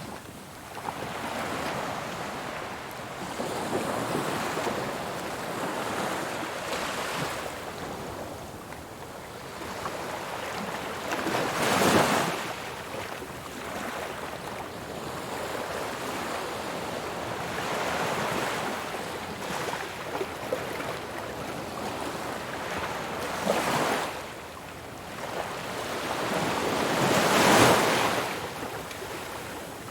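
Ocean surf washing ashore in a continuous hiss that swells and ebbs. Louder breakers crash about twelve seconds in and again near the end.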